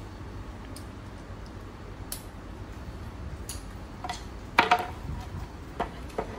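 Light clicks and knocks of shoe-cabinet parts and tools being handled during assembly, with one louder clatter that rings briefly about two-thirds of the way in, followed by two smaller knocks near the end.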